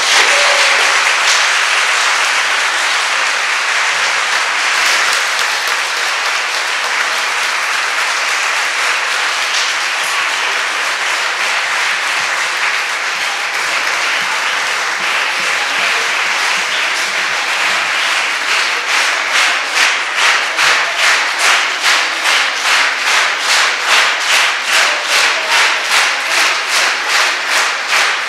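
Audience applauding: a dense, steady clatter of many hands that, about two-thirds of the way through, turns into rhythmic clapping in unison at about two claps a second.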